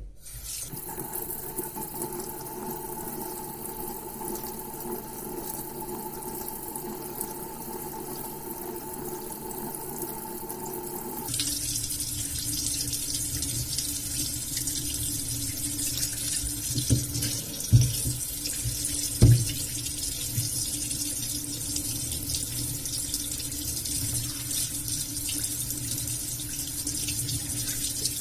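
Water running steadily from a tap, its sound changing about eleven seconds in as the flow or what it lands on shifts, with two short knocks a little after halfway.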